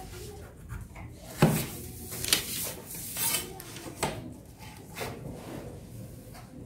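Drafting tools handled on a table: a pencil scratching along a steel ruler, the ruler knocking as it is shifted and set down, and brown paper rustling. The loudest sound is a sharp knock about a second and a half in, with lighter knocks near the four- and five-second marks.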